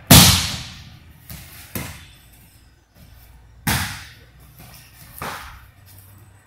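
Aikido breakfalls, a body and arm slapping onto the dojo mat. A loud slam comes right at the start and another strong one about three and a half seconds in, with lighter thuds between and one more later on.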